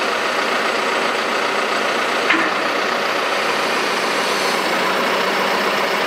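John Deere 310SL backhoe loader's diesel engine running steadily while its hydraulics draw the backhoe arm back in.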